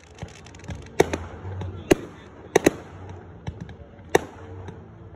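Fireworks display: aerial shells bursting with five loud, sharp bangs at irregular intervals, the first about a second in and two of them almost together, with faint crackling between.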